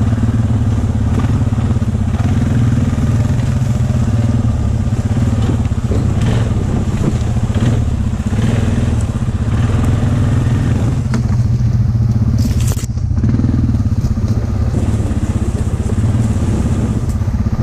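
ATV engine running steadily as the quad rides along a leaf-covered trail, with a brief dip about thirteen seconds in.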